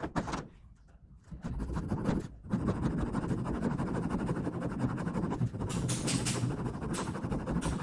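Small fine-toothed saw blade of a Gerber Suspension multitool sawing into a piece of wood: a steady rasping of quick back-and-forth strokes that starts about a second and a half in. A few light clicks come just before it.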